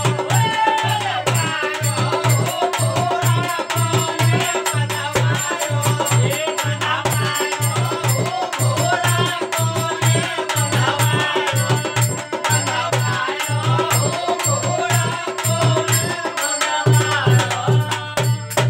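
Rajasthani folk Holi song performed live: men singing to a harmonium, with a dholak drum keeping a fast, even beat.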